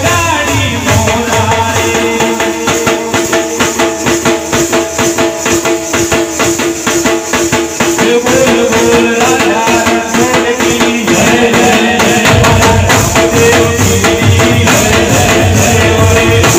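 Live devotional bhajan music from a band: sustained keyboard melody over a fast, steady jingling percussion rhythm, with dhol drums. A heavier low drum beat comes in about twelve seconds in.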